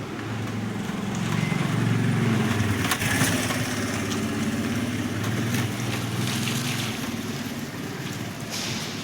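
Concrete mixer machine running: a steady engine hum with a rattling, scraping noise over it, loudest about two to three seconds in.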